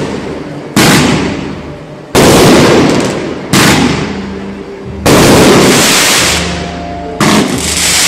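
Aerial fireworks bursting: five loud bangs about one and a half seconds apart, each trailing off slowly in a long rumbling tail.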